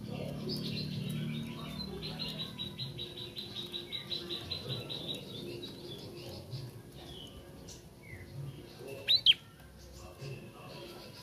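Young caged prenjak trotol singing: a rapid, even trill of high chirping notes for the first few seconds, then scattered single chips, and two loud, sharp sweeping calls about two seconds before the end. This is a juvenile practising its song.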